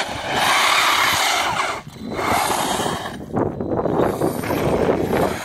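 HSP Brontosaurus Pro 3.0 RC truck's 3300 kV brushless electric motor whirring under throttle, in two bursts with a short break about two seconds in.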